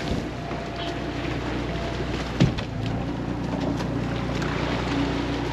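Sportfishing boat's engines running steadily under wind and churning water. A single sharp knock comes about two and a half seconds in.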